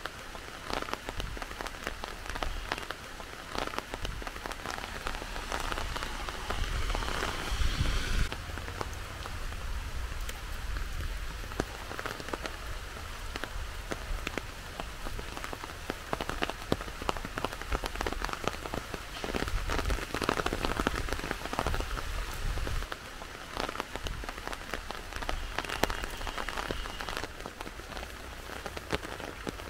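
Heavy rain falling steadily, a dense hiss of countless drops striking surfaces close by.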